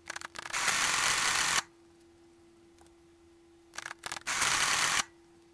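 Friden STW10 electromechanical calculator, twice: a few quick clicks of keys being pressed, then about a second of its motor and gearing running a multiplication cycle before stopping.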